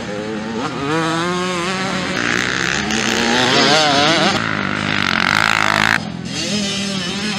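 Motocross dirt bike engines revving hard through corners, the pitch climbing and dropping again and again as the throttle is worked. About six seconds in the sound cuts off abruptly and another bike's engine takes over, rising in pitch.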